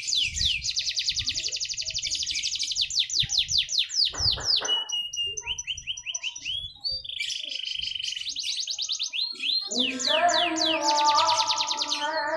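Canary singing a loud, fast song of rapidly repeated trilled notes and quick sweeping chirps. About ten seconds in, a lower pitched sound with several wavering tones joins it.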